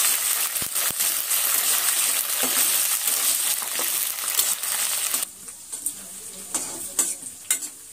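Eggplant pieces sizzling in hot oil in a metal kadhai while a spatula stirs and scrapes them. About five seconds in the sizzle drops away suddenly, leaving quieter scrapes and clinks of the spatula against the pan.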